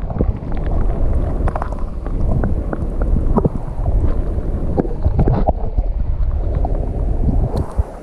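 Muffled underwater sound picked up by an action camera held submerged in a shallow stream: a low rumble of moving water with scattered clicks and knocks from the camera being handled.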